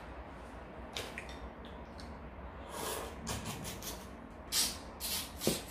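Close-up wet mouth sounds of eating soy-sauce-marinated raw shrimp: sucking, slurping and chewing with small clicks. They grow busier about halfway through and end in a run of loud slurps.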